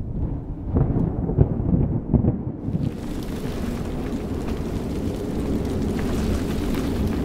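Deep rumbling with several heavy thuds in the first few seconds, then a steady rushing noise from about three seconds in.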